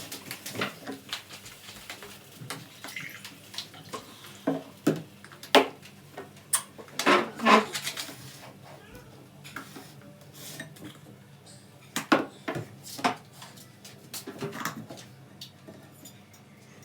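Kitchenware clattering: pots, dishes and cutlery knocking and clinking together in irregular strikes, the loudest cluster a few seconds in and another about three-quarters of the way through.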